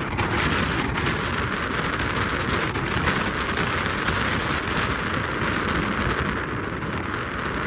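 Steady rushing noise of a moving car, with wind buffeting the microphone and road noise.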